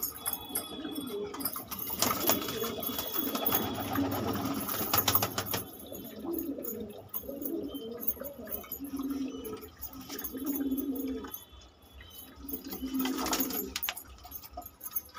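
Domestic pigeons cooing, a series of low coos repeating through the second half. A few seconds in there is a stretch of rustling and clicking.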